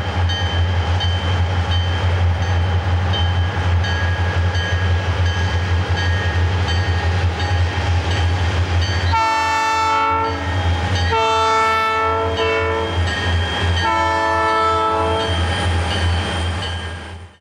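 Rio Grande diesel locomotives, led by an SD40T-2 tunnel motor, running past under power, their EMD 645 two-stroke diesels giving a steady low drone with a steady whine above it. About nine seconds in, a locomotive air horn sounds three blasts, each a second or more long.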